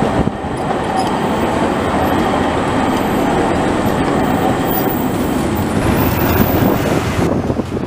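A low-floor articulated tram passing close by, with the steady noise of its wheels running along the rails.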